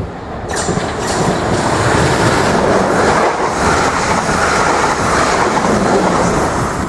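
Third-rail electric multiple-unit train running past close by: a loud rush of wheel and running noise that swells about half a second in and then holds steady.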